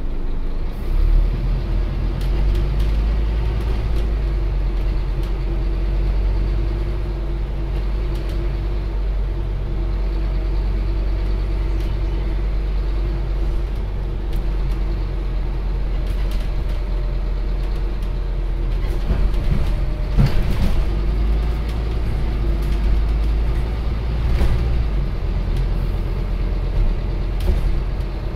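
Scania Omnicity CN230UB bus heard from inside while it drives along: a steady low diesel engine drone with road noise. Scattered clicks and knocks come through, loudest about two-thirds of the way in, and the low drone eases a little near the end.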